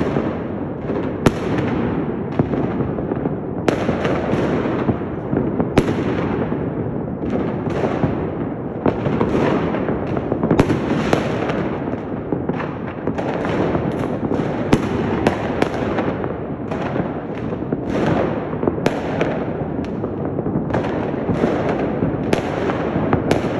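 Fireworks and firecrackers going off all across a city at once: a dense, unbroken rumble and crackle of distant bursts, with sharper nearer bangs every second or so.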